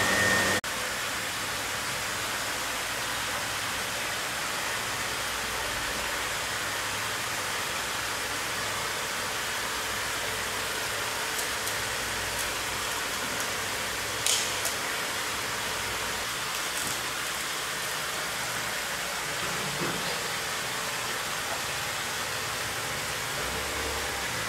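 A steady, even hiss of background noise, with a few faint short knocks.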